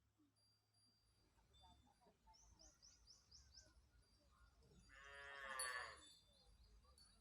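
A cow mooing once, a call of about a second near the end, with a bird chirping a quick run of short notes a little earlier.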